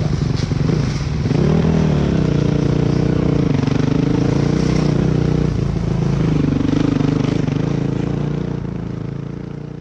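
Motocross bike engine running at low speed as it is ridden, with a brief rise in revs about one and a half seconds in and another about seven seconds in, fading out near the end.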